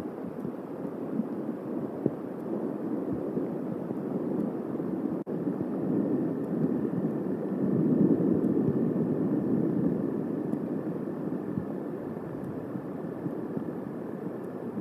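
Thunderstorm noise on an outdoor nest-cam microphone: a steady low rumble of wind and distant thunder that swells about eight seconds in, with a brief dropout just after five seconds.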